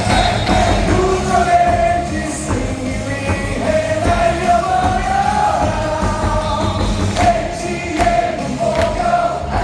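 Stadium crowd singing a baseball player's cheer song in unison over amplified music from the ballpark speakers, with a few sharp hits in the second half.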